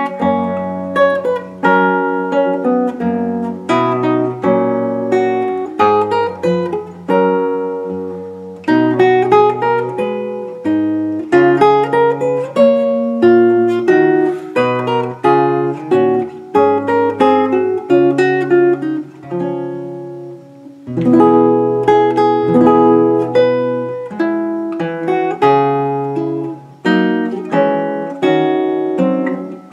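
Solo classical guitar, with a capo on the neck, played fingerstyle. It plays a steady run of plucked melody and bass notes, and the music briefly pauses about two-thirds of the way through before going on.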